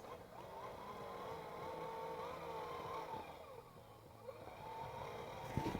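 Electric motor and geared drivetrain of an RC scale Kamaz 6x6 truck model whining as it drives, the pitch wavering up and down with the throttle. The whine fades about three seconds in and picks up again near the end.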